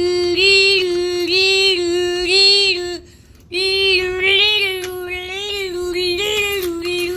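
Simplex fire alarm horn sounding in alarm after its pull station has been pulled: a loud, steady buzzy tone that breaks off for half a second about three seconds in, then sounds again.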